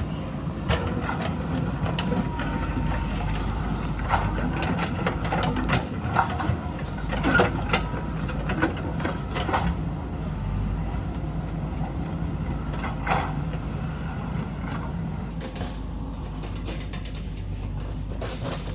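Diesel engine of heavy earthmoving machinery running steadily, with scattered sharp clanks and knocks of the working machine, busiest in the first half.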